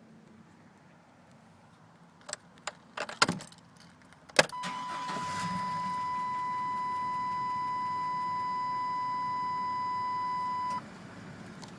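Strange noise from a 1999 GMC Safari van: a few sharp clicks, then a steady high-pitched tone for about six seconds that cuts off suddenly, followed by another click near the end.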